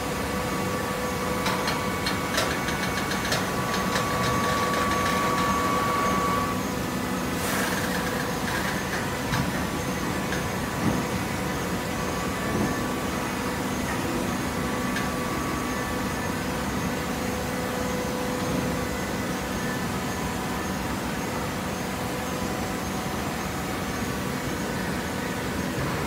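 An automatic horizontal baler's hydraulic power unit running with a steady hum made of several held tones. There is light clicking in the first few seconds. A higher tone drops out after about six seconds and is followed by a short hiss, with a couple of knocks a few seconds later.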